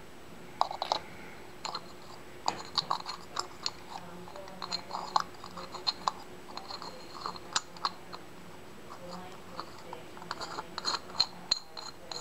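Irregular small metallic clicks and scrapes as a brass jet is threaded by hand into the bottom of a Tecumseh snowblower carburetor's aluminium float bowl, with the carburetor body shifting in the fingers.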